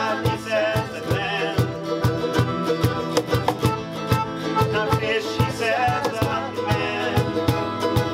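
Acoustic band playing an instrumental passage on accordion, a small strummed string instrument, acoustic guitar and electric bass, with an even strumming rhythm of about four strokes a second.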